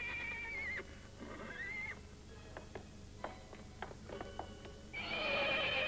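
A penned black stallion whinnying: a falling call, then a shorter rising one, a run of sharp knocks, and a louder, longer whinny starting near the end.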